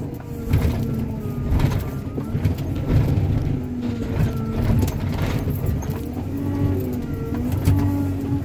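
Scrap-yard grapple machine heard from inside its cab, its engine and hydraulics running under load, with tones that rise and fall as the grapple works. Its claw tears the engine out of a scrap car, with repeated crunching and knocking of metal.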